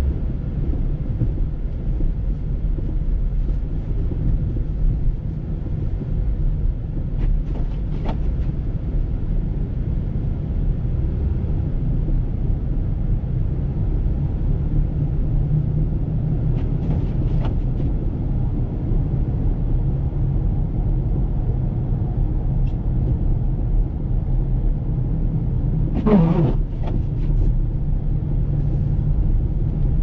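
Steady low rumble of a car driving on a snow-covered road, heard from inside the cabin: engine and tyre noise. A brief, louder pitched sound cuts through once near the end.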